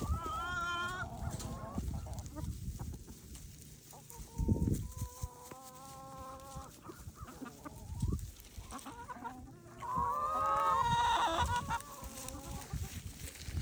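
Chickens clucking and calling, with a few drawn-out calls. The loudest call comes about ten seconds in.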